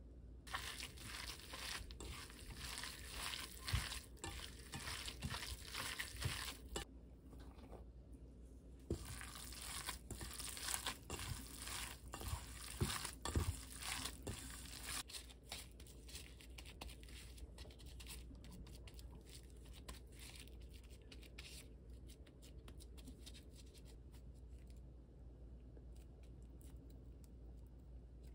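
A gloved hand kneading wet, seasoned ground beef in a stainless steel bowl: squelching and crinkling in two long spells, then softer, scattered handling sounds.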